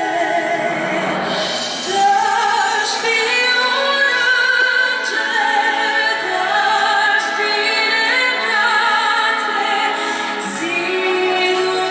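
A woman sings a slow song through a microphone, holding long notes with vibrato, accompanied by a chamber string orchestra.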